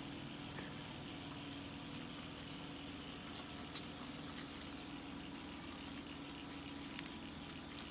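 Steady rushing of flowing floodwater, with a faint steady hum underneath and scattered faint patters and ticks.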